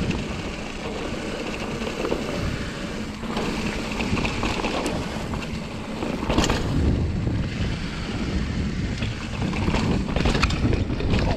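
Ibis Ripmo AF full-suspension mountain bike riding fast down a dirt forest trail: steady wind rush over the microphone and tyre noise on dirt, with scattered knocks and clacks from the bike over bumps, the sharpest about six and a half seconds in and a cluster near the end.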